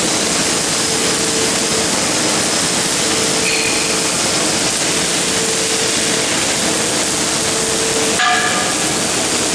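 MIG welding arc crackling and hissing steadily as a CNC gantry welder runs a bead, with a faint hum that comes and goes every second or two and a short click near the end.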